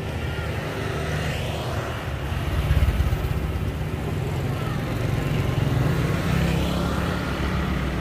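A motor vehicle's engine running steadily, with faint voices in the background.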